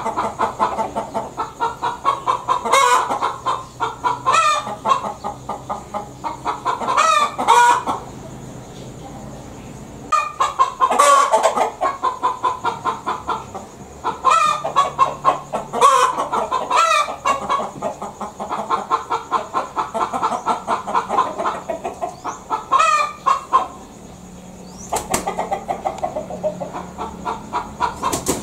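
Domestic hen cackling: runs of rapid clucks broken by louder, rising squawks, in several bouts with short pauses between them.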